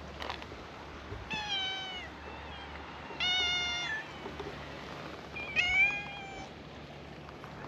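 A cat meowing three times, each call under a second long and clearly pitched, the last the loudest.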